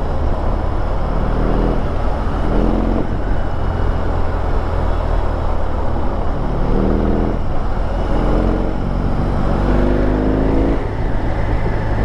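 BMW R18 First Edition's 1802 cc boxer twin running over a steady low rumble, its revs rising briefly about four times as the bike pulls away in stop-and-go traffic.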